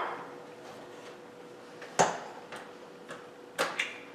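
A few sharp clicks and knocks as an electric hand mixer is picked up and handled, its motor silent because it is not yet plugged in. The loudest click comes about two seconds in, with a few more near the end, over a faint steady hum.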